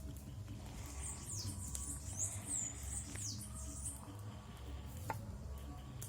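A small bird giving a run of thin, high chirps, several falling in pitch, over a steady low rumble, with a single sharp click near the end.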